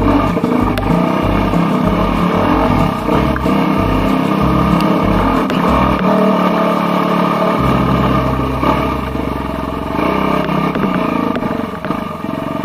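Trail motorcycle engine running under way, ridden along a muddy off-road track, the throttle rising and easing with the ground. The engine note settles steadier from about eight seconds in.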